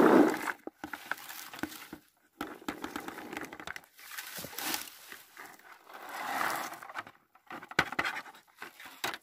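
Red plastic berry-picking scoop working blueberries: leafy rustling and scraping, with berries tipped from the scoop pattering into a plastic bucket, in short irregular bursts with a few sharp clicks near the end.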